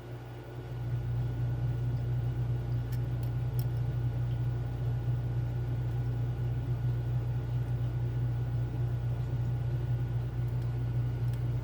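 Steady low mechanical hum, with a few faint light clicks about three seconds in and again near the end.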